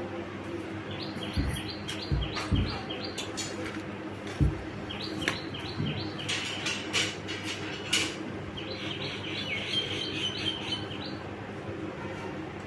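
A small bird chirping in three quick runs of short, repeated descending notes. A few dull low thumps fall in the first half, over a steady low hum.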